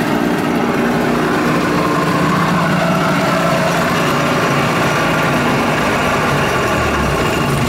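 An engine running steadily at a constant speed, with a held hum and drone.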